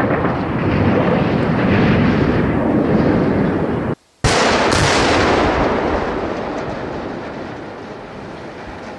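Rumble of a brick chimney being felled by explosives and crashing down. After a brief break, a sharp explosive blast and a second crack about half a second later, as demolition charges fire at the base of a steel water tower. The echo rolls away and fades over several seconds.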